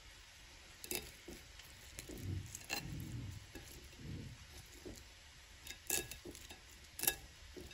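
Wooden fork cutting through a crispy pan-fried courgette fritter on a ceramic plate: soft crunching and crackling of the fried crust, with a few sharp clicks as the fork meets the plate, the loudest two near the end.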